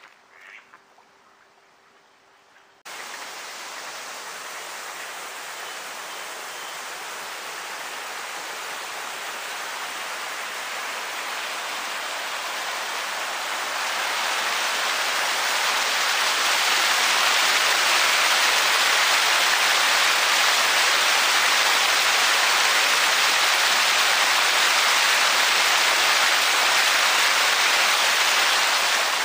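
Rushing water: a steady hiss that starts abruptly about three seconds in and grows louder over the next fifteen seconds or so, then holds steady.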